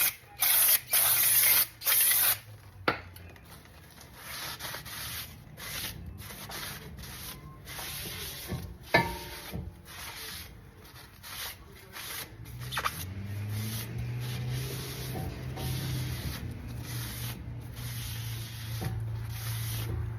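Aerosol brake cleaner sprayed in several short hissing blasts onto a new brake rotor, then rubbing and wiping as the factory anti-rust grease is cleaned off. A steady low hum joins in about halfway through.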